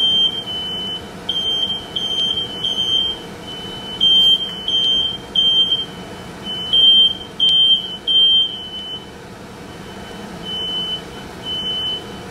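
Smoke alarm going off in repeated high-pitched beeps, set off by the potstickers frying and steaming in the pan. The beeps come in quick runs, break off briefly about nine seconds in, then sound a few more times, spaced out, near the end.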